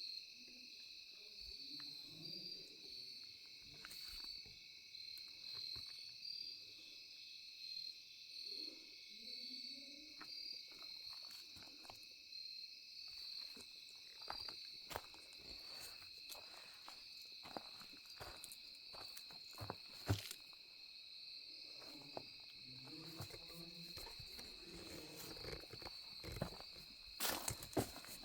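A steady, pulsing chorus of insects chirring high, like crickets, with scattered light clicks and crackles that come thicker in the second half and bunch together near the end.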